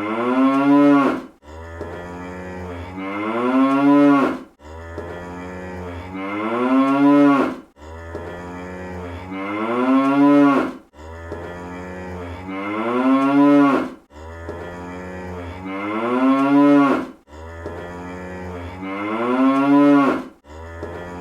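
Cartoon cow moo sound effect repeating about every three seconds. Each moo starts low and steady, then rises in pitch and swells before cutting off suddenly.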